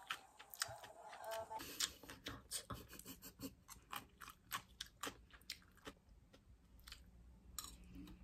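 Close-up chewing of a crisp mouthful of rice and vegetables: irregular crunches, several a second, thinning out in the last couple of seconds.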